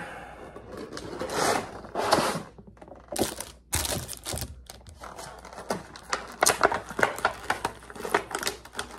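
Anime figure's cardboard box and clear plastic packaging being handled and opened: irregular rustling and crinkling, then many sharp clicks and crackles about halfway through.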